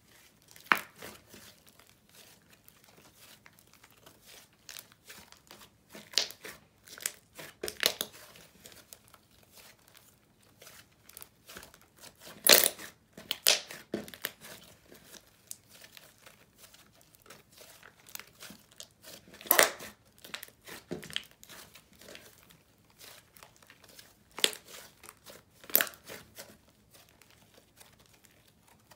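Hands squishing and stretching glossy slime: irregular sticky clicks and pops, the loudest about twelve seconds in, near twenty seconds and twice near the end.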